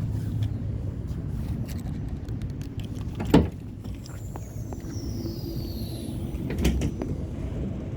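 Steady low vehicle rumble, with a sharp knock about three and a half seconds in, a smaller one near seven seconds, and a faint high falling whistle in between.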